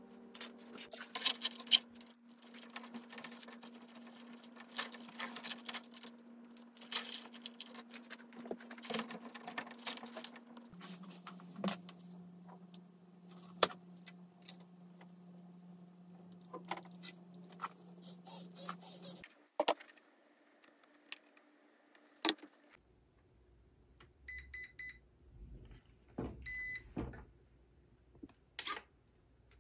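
Small plastic and metal RC car parts clicking and clinking as they are handled, over a low steady hum that drops in pitch about ten seconds in and stops near twenty seconds. Near the end, two groups of short high electronic beeps.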